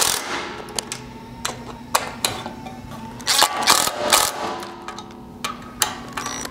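Cordless drill/driver with a 5/32 hex bit running in short bursts, driving and tightening the button-head bolts that hold a roof rack's side rail, with a cluster of rapid bursts about halfway through.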